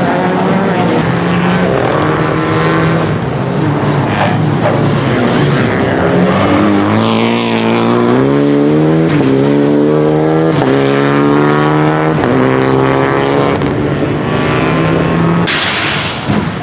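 Rally car engine running hard, its pitch climbing and dropping back in steps several times as it shifts up through the gears. A short rush of noise comes near the end.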